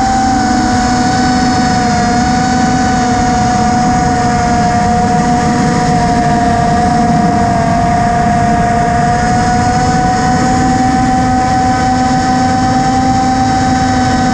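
A model aircraft's motor and propeller whine steadily at nearly constant pitch, heard through the onboard camera, with wind rumble on the microphone underneath.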